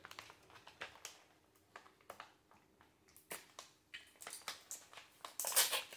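Plastic treat pouch crinkling and rustling as hands work at tearing it open, with scattered light clicks at first and denser crinkling in the last two seconds.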